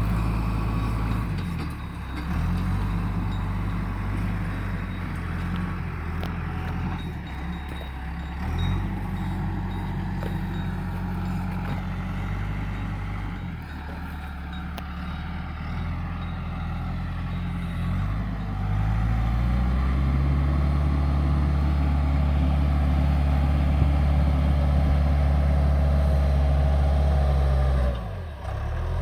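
Engine of an earth-moving machine working, its speed shifting several times, then rising about two-thirds of the way through to a louder, steady higher speed that dips briefly near the end.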